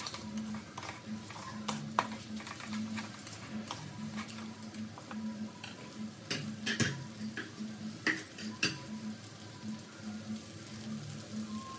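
Wooden spatula stirring and scraping stir-fried glass noodles and mushrooms in a metal wok, with sharp knocks against the pan, over a light sizzle. A low hum pulses on and off underneath.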